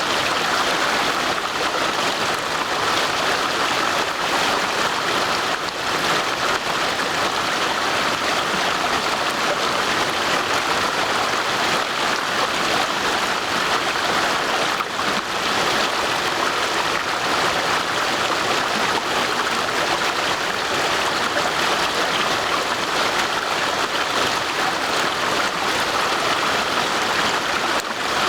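Stream water rushing steadily over rocks: a continuous, even wash of water noise with no pauses.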